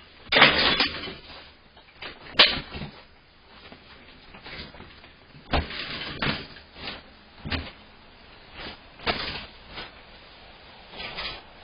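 Irregular clanks and clicks of a heavy chain bike lock and its combination lock body being handled, about a dozen knocks, with the loudest two near the start.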